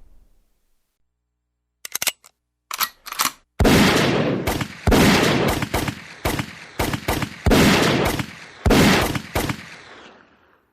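Gunfire: a few short sharp clicks and cracks about two seconds in, then a run of about a dozen loud shots in quick, uneven succession, each with an echoing tail, dying away near the end.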